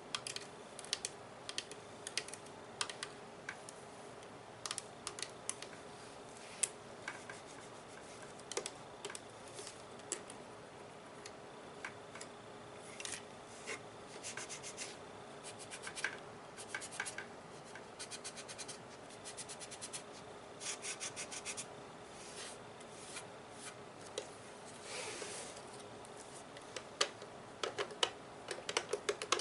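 Tapping and scratching on the plastic body of a Nerf gun: scattered sharp clicks and quick runs of rapid taps, with a short rasping scratch about 25 seconds in.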